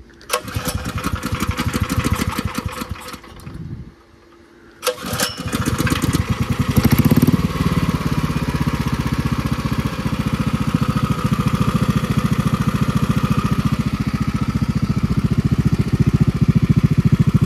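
Predator 459 single-cylinder engine on a go-kart buggy runs briefly and stops, then is started again about five seconds in. It revs up for a moment and settles into steady running.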